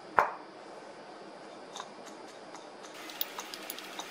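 A single sharp knock of a small container set down on a countertop, then light clicks and scrapes of a metal spoon against a small ceramic bowl as spices are tipped out, coming thicker near the end.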